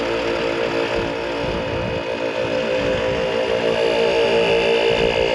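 Portable air compressor running steadily with a fast, even chugging pulse, pumping a four-wheel-drive's tyre back up after running at low off-road pressure.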